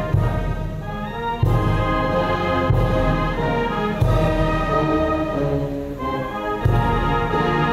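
Military brass band playing slow, stately ceremonial music: held brass chords, with a deep drum stroke on each chord change about every second and a quarter.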